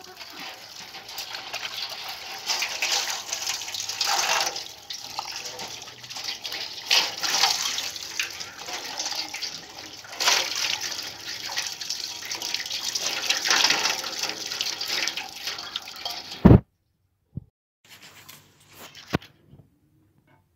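A stream of tap water pouring over a raw whole chicken as it is rinsed by hand, splashing into a steel basin, the splashing swelling and easing as the bird is turned. The water sound cuts off suddenly with a thump well before the end, leaving only a few faint clicks.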